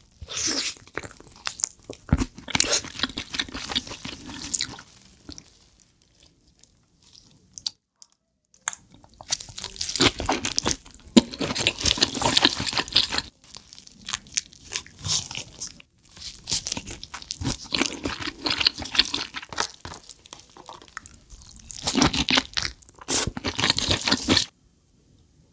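Close-miked eating of king crab: shell crunching and cracking with chewing, in several bursts separated by short pauses.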